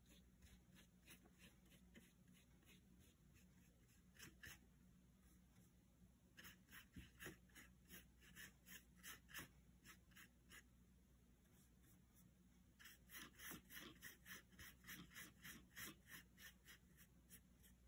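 Faint rasp of a paintbrush scrubbing watercolour onto paper. The strokes go quickly back and forth, several a second, in runs broken by short pauses.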